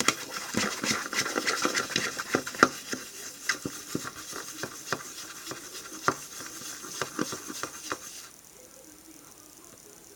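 A pencil stirring a wet, sticky slime mixture of glue and shower gel in a plastic bowl, with irregular clicks and scrapes against the sides; the stirring stops about eight seconds in.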